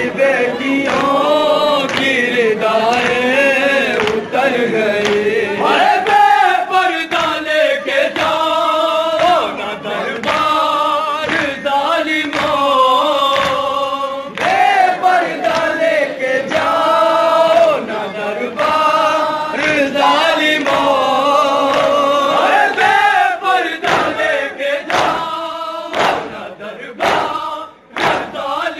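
A group of men chanting a Shia noha in unison, with rhythmic matam chest-beating heard as regular sharp slaps under the singing. Near the end the chant thins and the slaps stand out on their own.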